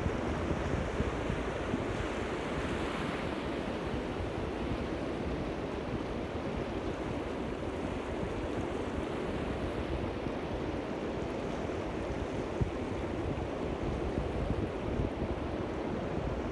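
Small sea waves washing steadily onto a sand beach, with wind rumbling on the microphone.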